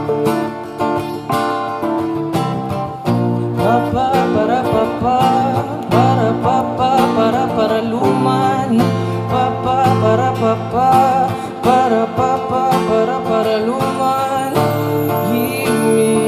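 Acoustic guitar strummed in steady chords, with a man singing a melody over it from about three seconds in.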